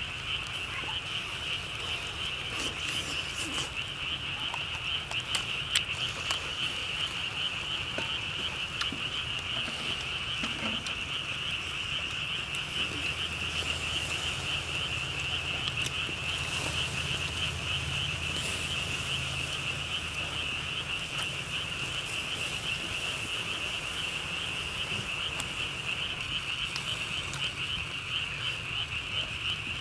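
A steady outdoor chorus of calling animals: one dense, high-pitched trill that runs on without a break. A few faint clicks and taps are scattered over it.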